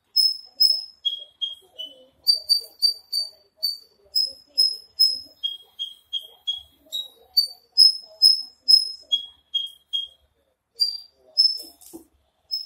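Javan bushlark singing: a long run of clear whistled notes, about two to three a second, each pitch repeated two to five times before the song jumps to a higher or lower note.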